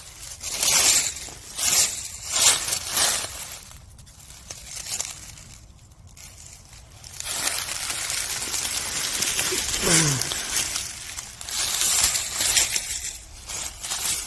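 Footsteps crunching and crackling through dry leaf litter and undergrowth on a forest slope, in uneven bursts, with a longer stretch of steady crackling in the second half.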